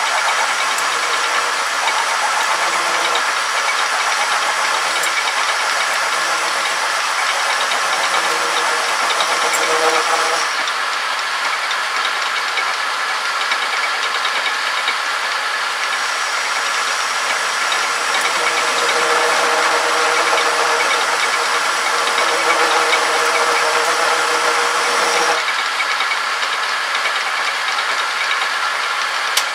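Homemade metal lathe running with its cutter taking a cut on a metal shaft: a steady machine hum and whine under a dense hiss of cutting. The higher hiss thins out about a third of the way in and again near the end.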